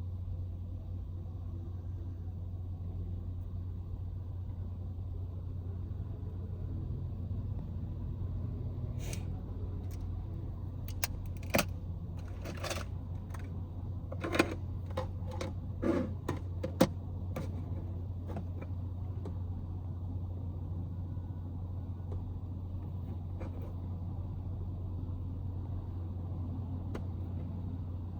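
Steady low engine drone heard inside a kei van's cabin. A cluster of sharp clicks and light knocks from objects being handled comes about a third of the way in and lasts several seconds.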